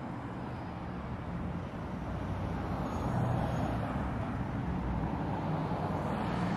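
City road traffic: a motor vehicle's engine hum and tyre noise grow louder about two to three seconds in as it draws close, over a steady background of traffic.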